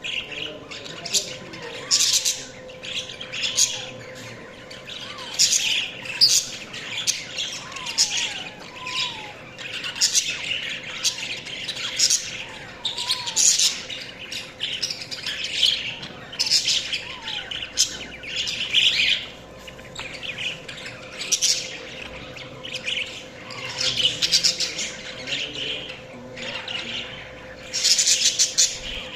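Budgies chirping and squawking in quick, continuous bursts of short high calls.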